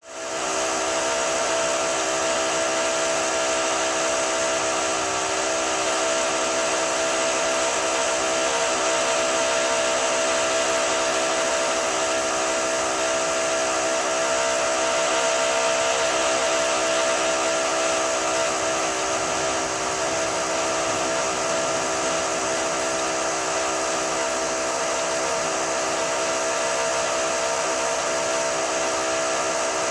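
High-pitched power drill running continuously with a steady whine: one strong tone over a wide hiss, starting suddenly at the outset and holding level throughout.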